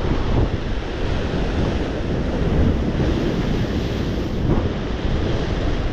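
Strong wind buffeting the microphone with a steady low rumble, over rough sea surf washing against the breakwater rocks.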